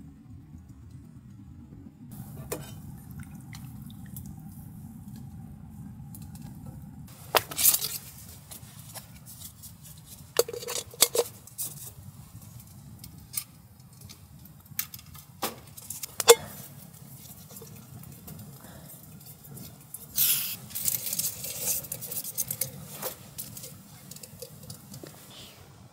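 Metal clinks, knocks and rattles of an MSR Windburner cook pot and its wire hanging kit being handled and fitted together, in scattered sharp strikes with a few louder knocks. A steady low rumble runs underneath.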